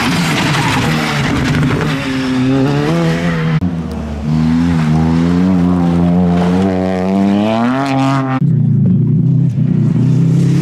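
Rally car engines at full stage pace, three cars in turn with hard cuts between them: a Škoda Fabia passing, then a Ford Fiesta accelerating with its engine note rising steadily for about four seconds, then a Subaru Impreza running at a high steady note.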